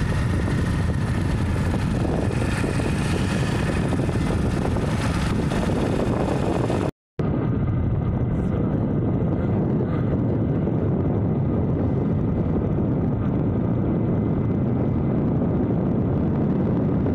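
Steady rumble of wind buffeting the microphone over a motorcycle engine running while riding. About seven seconds in the sound cuts out for an instant, then comes back duller.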